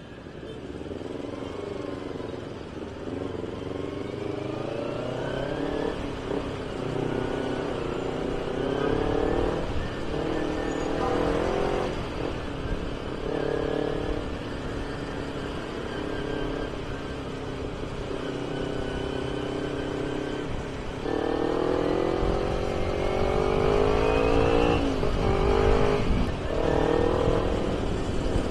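Kawasaki Ninja 250R parallel-twin engine through an AHM carbon racing exhaust, ridden and accelerating through the gears. The pitch climbs and drops off at each upshift, several times, with one long rising pull near the end.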